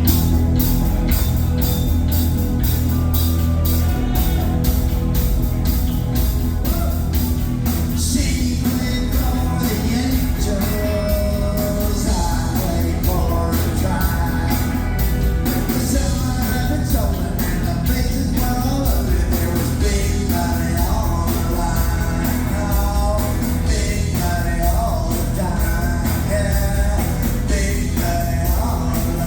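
Live rock band playing with a steady drum beat, joined by a man singing lead from about eight seconds in.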